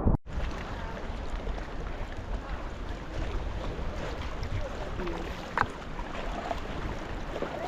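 Sea kayak out on the open sea: a steady wash of water around the hull and paddle, with wind on the microphone.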